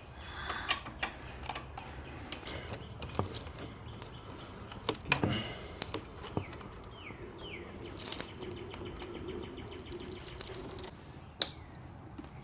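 Scattered light clicks and knocks of motorcycle parts, screws and hand tools being handled, with a few short high chirps or squeaks and a faint steady hum partway through.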